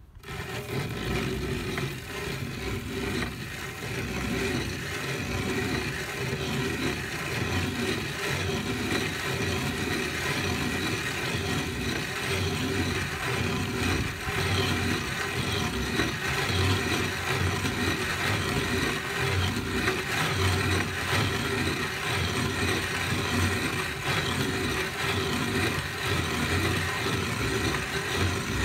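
Hand-cranked metal grain mill grinding flax seeds: its burrs crush and rasp the seeds in a steady, rhythmically repeating grind as the crank turns.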